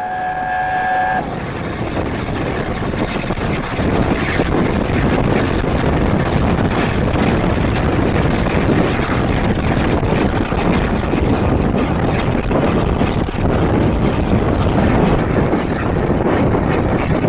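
Class A4 steam locomotive's chime whistle sounds a held chord for about a second. Then comes the steady rushing noise of the engine running at speed, heard from on top of the train with wind over the microphone, louder from about four seconds in.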